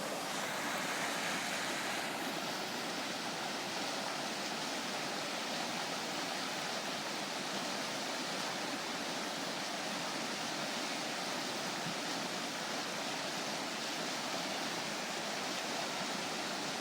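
The Provo River's water rushing steadily over rapids, an even hiss of moving water with no breaks.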